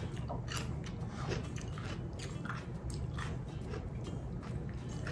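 Close-miked eating: a person chewing and biting food, with irregular soft crunches and mouth clicks a couple of times a second.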